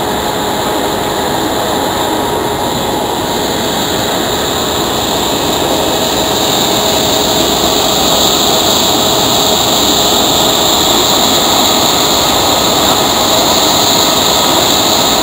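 Large mine conveyor system running: a steady mechanical roar with a high hiss, growing a little louder about halfway through.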